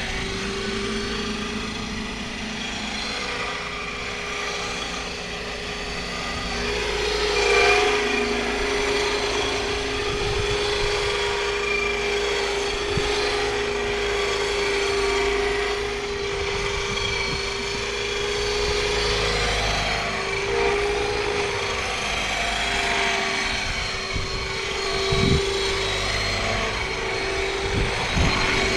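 Radio-controlled scale MD520 helicopter flying, a steady whine over the rotor noise, mixed with the scale turbine sound played by its onboard Aerosound sound module. The sound swells as it passes closest, about eight seconds in, and a few short thumps come near the end.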